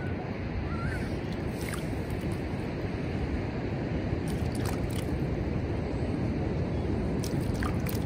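Steady ocean surf with wind on the microphone, and a few faint, brief high squeaks.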